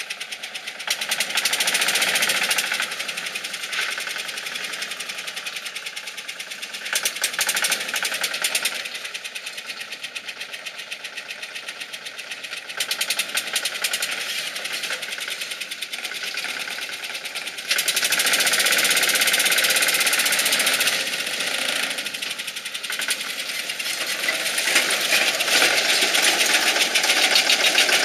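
Small off-road vehicle's engine running with a fast, even clatter. It swells and eases in stretches as the vehicle is driven through dense brush, and is loudest for a few seconds about eighteen seconds in.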